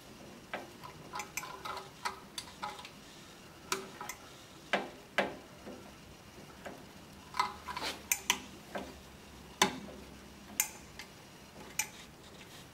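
Scattered, irregular sharp clicks and taps of a split-nut coupling and glassware being handled and screwed together, joining the boiler level control to the boiler of a laboratory water still.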